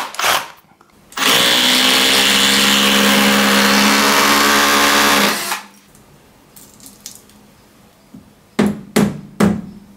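Bosch SDS hammer drill in hammer mode boring a 6 mm hole in the wall, running steadily with a pitched hum for about four seconds. Near the end, three sharp hammer blows at the wall.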